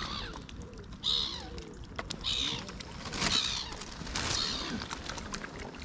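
Gulls calling, a run of harsh, high squawks about a second apart as they crowd in for bread.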